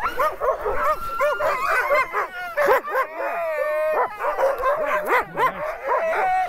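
Many harnessed sled dogs barking, yipping, whining and howling at once, with calls overlapping throughout: the excited din of a dog team being hooked up and eager to run.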